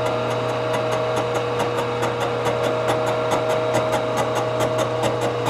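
Knee mill running a 3-inch face mill on a light finishing skim pass across a cast-iron exhaust manifold flange. The mill gives a steady hum and whine, with a fast, even ticking from the cutter.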